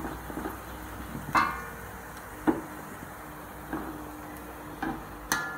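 Metal spatula knocking and scraping against a metal wok while stirring bawang frying in a little oil. About five separate clinks, some ringing briefly, with the loudest about a second and a half in and near the end.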